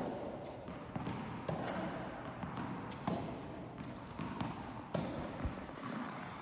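Tennis balls being struck by rackets and bouncing on a hard indoor court: a string of sharp pops at uneven intervals, in a large hall.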